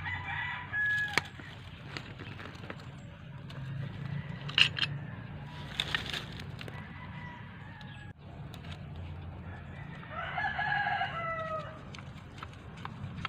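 A rooster crows once about ten seconds in, a long call that drops in pitch at its end. Before it come a few sharp clicks and knocks from pipe fittings being handled.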